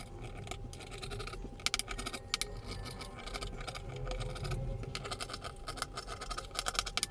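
Tailor's scissors cutting through layered fabric: runs of short snips, busiest around two seconds in and again from about five seconds in.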